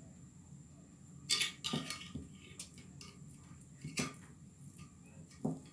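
Several sharp clinks and taps of a metal spoon and chicken pieces against a glass dish of beaten egg as the floured chicken is dipped.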